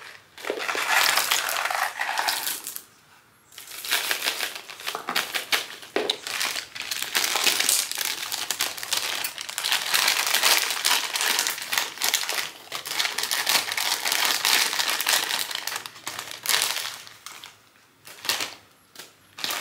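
Plastic snack packets crinkling as they are handled, opened and emptied into a popcorn bucket, with short pauses about three seconds in and near the end.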